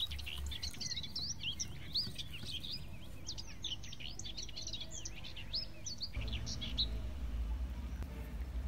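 Small birds chirping: a dense run of short, high chirps that falls away about six seconds in, after which a low hum comes up.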